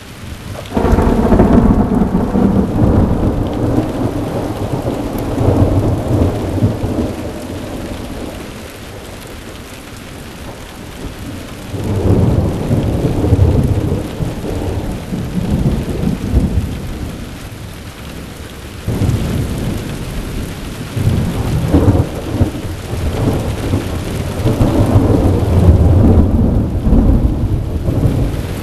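Thunder rumbling in three long rolls, each swelling and fading over several seconds, with rain falling steadily throughout.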